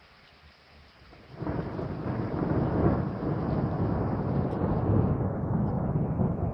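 Rain falling, then about a second and a half in a loud, long rumble of thunder sets in suddenly and keeps rolling.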